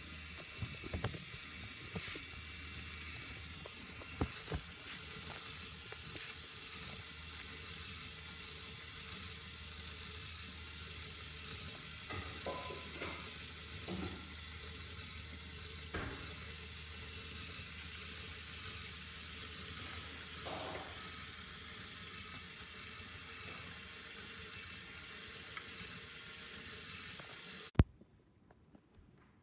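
Motorized LEGO car wash running: its electric motors and plastic gears whir steadily with a hiss, with scattered light clicks from the moving parts. The sound stops suddenly with a sharp click near the end.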